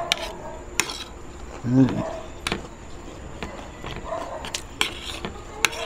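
Spoon and fork clinking and scraping on a ceramic plate during a meal, with sharp clicks spread through. About two seconds in there is a short, low, pitched call, which is the loudest sound.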